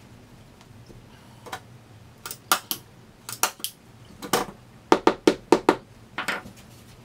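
A hand staple gun and a hammer at work on a fabric-covered wooden chair seat: about fifteen sharp clacks and knocks, ending in a quick run of six taps at about five a second.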